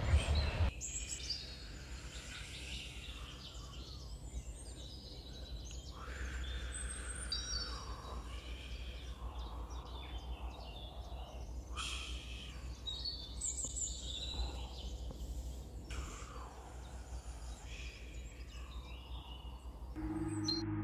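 Nature sound-effect ambience: scattered high chirps and calls over a low steady rumble. The mix changes abruptly every few seconds where clips are cut together.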